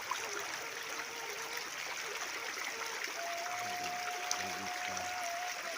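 Small river flowing, a steady trickle and rush of water. A thin steady tone joins about three seconds in.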